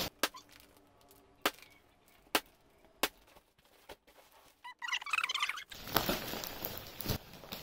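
Clear plastic wrapping crinkling and rustling as it is pulled off a rolled foam mattress: a few sharp separate crackles at first, then denser rustling from about five seconds in.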